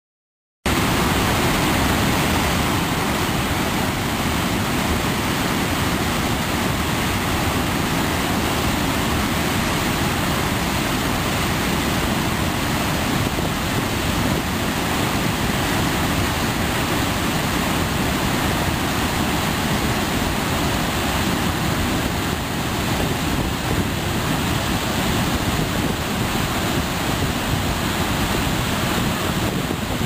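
Dettifoss, a high-volume glacial-river waterfall, rushing: a loud, steady roar of falling water that starts abruptly about half a second in.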